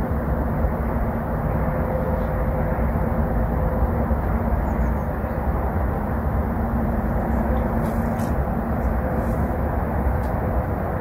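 Steady low rumble of outdoor background noise with a faint constant hum, a few faint ticks about eight seconds in.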